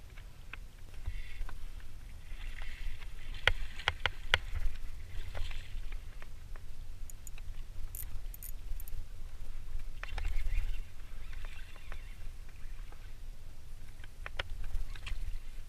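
Water slapping and splashing against a kayak hull on choppy water over a steady low rumble, with scattered sharp clicks and knocks, a cluster of them about four seconds in.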